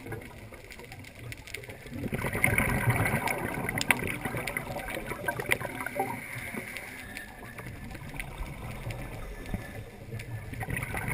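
Scuba diver's exhaled bubbles gurgling out of the regulator, heard muffled through an underwater camera housing: a long bubbly swell from about two seconds in, quieter in between, rising again near the end. A sharp click right at the start.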